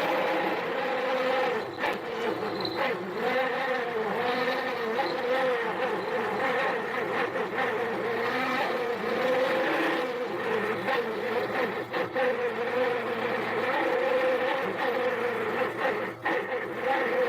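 Harbor Freight mini lathe running with a steady buzzing whine as a drill bores through the spinning workpiece, the pitch wavering slightly under the cutting load, with a few brief dips in level.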